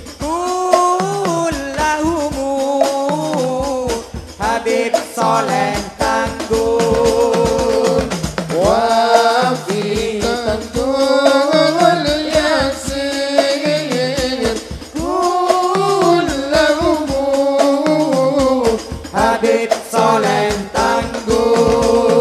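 Men chanting an Arabic tawasul prayer into microphones in long melodic phrases, the notes held and wavering, with short pauses between lines.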